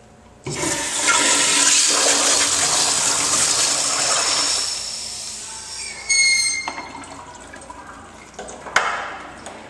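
Crane toilet with a chrome flush-valve pipe flushing: a loud rush of water starts suddenly about half a second in, holds for several seconds, then tapers off. A brief high whistle comes about six seconds in, and a sharp click near the end.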